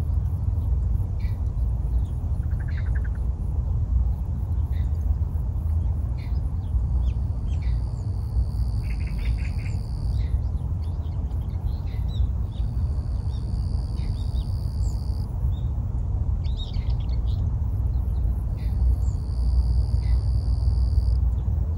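Birds calling over a steady low rumble: short chirps every second or two, a brief trill about three seconds in, and three long, level high whistled notes of about two and a half seconds each.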